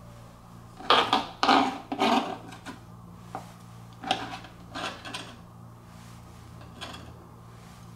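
Diced orange pepper being swept and scraped by hand across a plastic cutting board and into a salad bowl. There are short scraping rubs, the three loudest about a second in, more around four to five seconds in, and a last one near the end.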